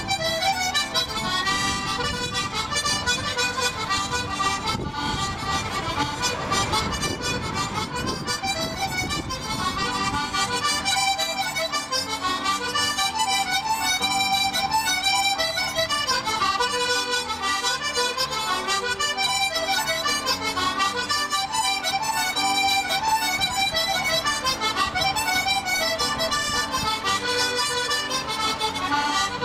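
Instrumental accordion music, playing continuously.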